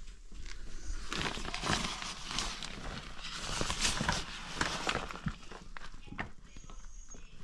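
Camping tent fabric rustling and crinkling as the tent's flap is handled and pulled open by hand, most busily between about one and six seconds in.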